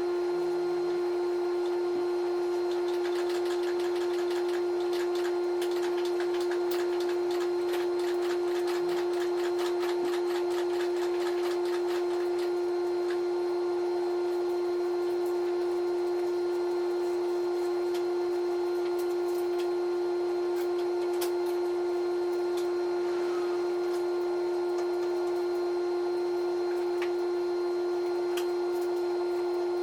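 Dual-action (DA) sander running steadily on body filler, a constant high hum with scratchy ticking from the pad for several seconds near the start. This is the rough shaping of the filler, taken close before block sanding.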